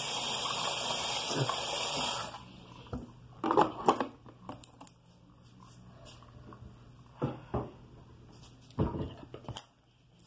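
A bathroom tap runs with a steady hiss of water and is shut off about two seconds in. After that come a few scattered knocks and clatters of small bathroom items being handled and set down.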